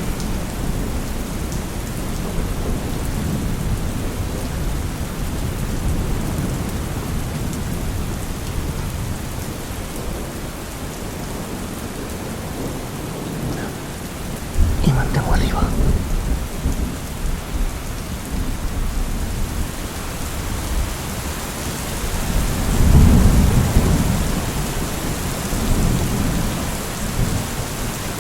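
Recorded rainstorm ambience: steady heavy rain with low rolling thunder, a sharper clap about halfway through and a deeper rumble swelling up near the end.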